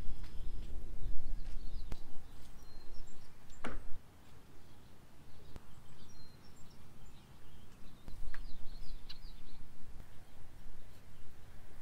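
Wind blowing across the microphone in gusts, with birds chirping now and then and a single quick falling whistle about four seconds in.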